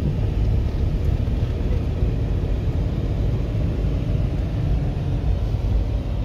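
Passenger van driving along the road, heard from inside the cabin: a steady low rumble of engine and road noise.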